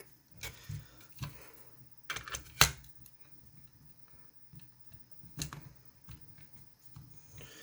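Scattered light clicks and knocks of a small plastic Bluetooth speaker and a screwdriver being handled on a desk as its case screws are set to be undone, the sharpest click about two and a half seconds in.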